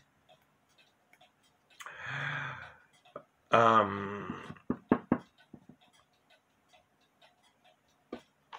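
Cuckoo clocks on the wall ticking softly, an even row of small ticks most plain in the second half. Over them come a man's low wordless vocal sounds about two and three and a half seconds in, the second the loudest, and a few knocks around five seconds.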